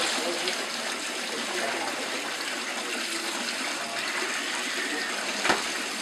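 Tap water running into a concrete washtub while wet clothes are handled and scrubbed by hand. A single sharp knock comes near the end.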